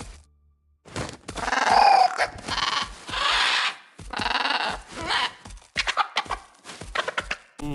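Livestock bleating: a run of several separate calls, beginning after a brief silence.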